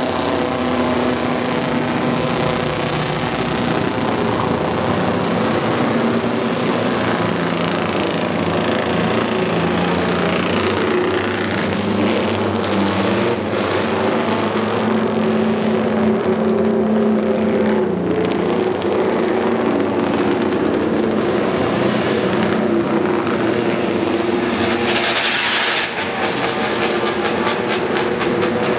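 Historic racing sidecar outfits and classic motorcycles passing one after another, their engines revving and changing pitch as each goes by, with no break in engine sound.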